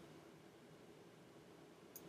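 Near silence: faint room hiss, with one faint click near the end.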